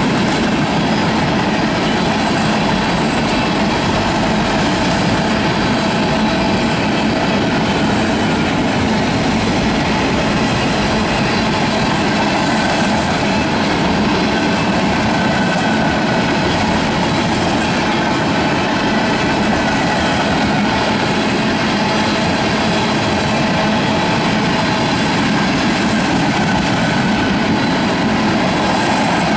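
Freight cars of a Canadian National mixed train, boxcars and then tank cars, rolling past: a steady, unbroken rumble and rattle of steel wheels on the rails.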